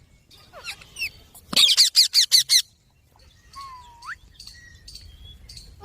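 Indian ringneck parrots calling. A few soft squawks come first, then a rapid run of about seven sharp screeches about a second and a half in. Around the middle there is a single whistle that dips and then sweeps upward, followed by faint chatter.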